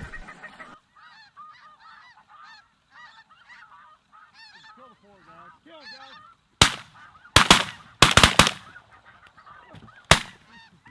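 Snow geese calling in a run of short, high honks, then a quick volley of shotgun shots about two-thirds of the way in and one last shot about two seconds later.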